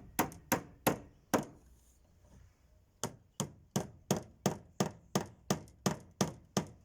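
Hammer blows on wood as the bottom panel of a cupboard is fixed in place: four blows, a pause of about a second and a half, then a steady run of about a dozen blows at roughly three a second.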